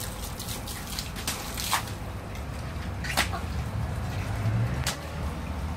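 Garden-hose water splashing and dripping on patio tiles, with a few scattered sharp clicks over a low rumble on the phone microphone.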